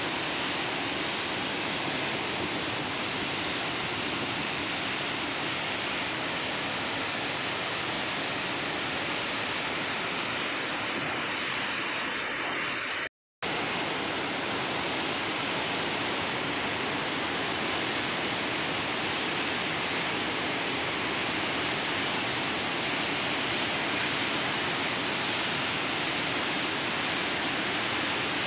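Floodwater pouring through a dam's open spillway gates and churning below: a loud, steady rush of water. It cuts out completely for an instant a little before halfway, then carries on unchanged.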